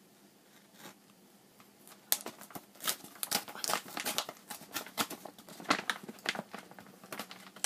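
A courier mailer bag being slit with a box cutter and pulled open: quiet for about the first two seconds, then a run of crisp crinkling and tearing rustles.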